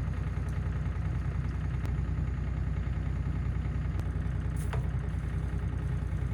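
Bobcat E35 mini excavator's diesel engine idling steadily, with a few faint ticks.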